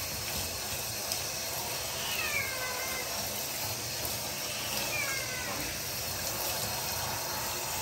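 Kitten meowing twice, thin high cries that fall in pitch, over the steady hiss of a hand shower spraying water into a bathtub. The meows are those of a frightened kitten being bathed.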